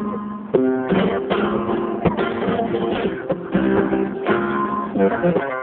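Acoustic guitar strummed in a flamenco rhythm: sharp repeated strokes over ringing chords.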